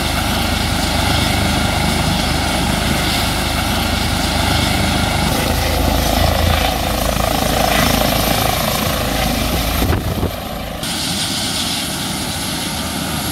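Eurocopter EC135 helicopter running at high power as it lifts off, a loud steady turbine and rotor noise with a pulsing low rotor beat. About ten seconds in the low beat drops away and a slightly quieter rushing noise continues.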